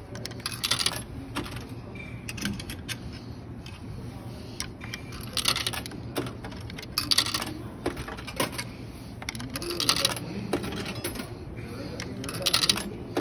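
Coins dropping one at a time through a vending machine's coin slot and mechanism, each a short metallic clink and rattle, about five over the span a few seconds apart, over a steady low hum.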